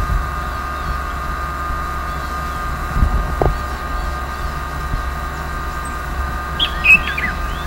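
Steady low rumble with a constant high whine, two soft knocks about three seconds in, and a few short chirps near the end.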